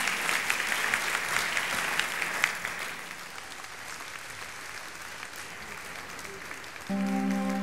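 Audience applauding, the clapping loudest at first and thinning out over several seconds. Near the end, soft sustained music comes in.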